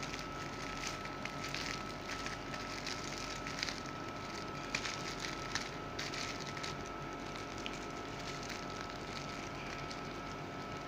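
Clear plastic packaging bag crinkling and crackling as it is handled and tugged open, in scattered crackles that thin out after about six seconds. A faint steady high hum runs underneath.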